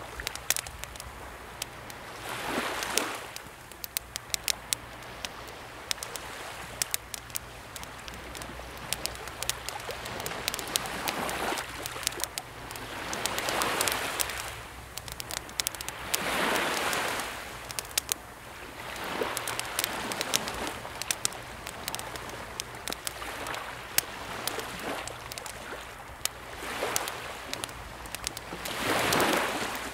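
Wood campfire crackling with frequent sharp pops, over calm sea waves washing onto rocks. The waves swell up and fall away every few seconds.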